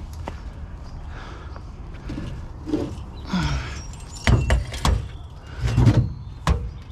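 Salvaged items being shifted and lifted into place: scraping, then several hard clunks and knocks in the second half.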